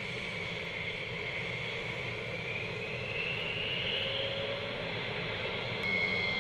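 F-16 fighter jet taxiing: the engine's steady high whine over a low rumble. The whine rises in pitch about halfway through, then switches abruptly to a steady lower whine near the end.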